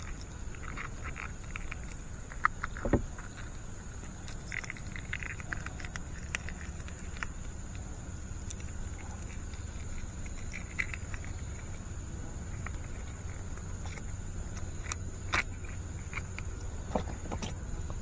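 Hands handling a freshly caught snakehead and fishing gear in a small boat: scattered clicks, taps and short rustles, over a steady low rumble and a faint steady high-pitched hiss.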